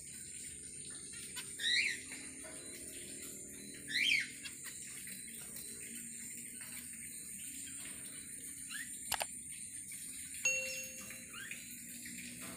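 Zebra finch calling, a short chirp repeated every two to three seconds and fading near the end, with one sharp click about nine seconds in.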